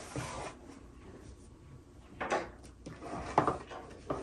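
Stiff cardboard gift box being handled for opening: a ribbon rustles off it, then the box scrapes and rubs briefly, with a couple of light knocks of cardboard on the table.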